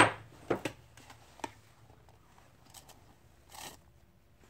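Handling noise as containers of chemical powder are moved about for mixing. A sharp knock right at the start, a few lighter taps over the next second and a half, and a short rustling scrape near the end.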